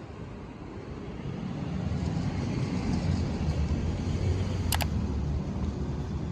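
Steady low rumble of road traffic, swelling after about a second, with two quick sharp clicks near the end.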